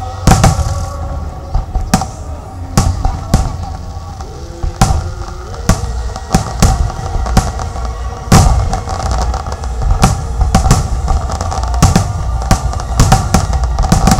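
Aerial fireworks bursting in an irregular series of sharp bangs, coming thicker in the second half, over steady background music.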